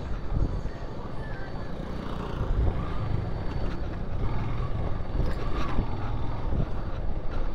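Motorcycle being ridden at a steady pace: the engine runs evenly under a low rumble of wind and road noise on the microphone.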